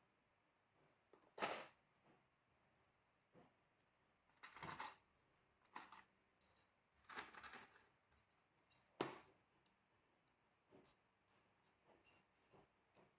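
A plastic fixings case being handled and opened, giving sharp clicks and short rattles, then small metal hollow-wall anchors clinking as they are picked out by hand. The sharpest clicks come about a second and a half in and about nine seconds in, with lighter ticks after that.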